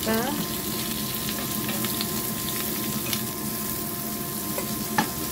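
Carrot matchsticks and aromatics sizzling in hot oil in a frying pan, stirred with a wooden spatula that taps against the pan a few times, the loudest tap near the end.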